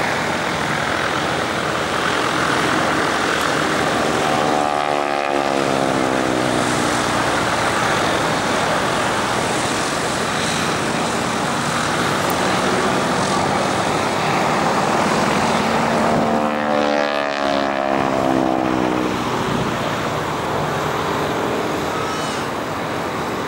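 Single-engine propeller aircraft flying by with a steady engine drone. It passes close twice, about five seconds in and again near seventeen seconds, each pass bringing a swirling sweep that falls in pitch.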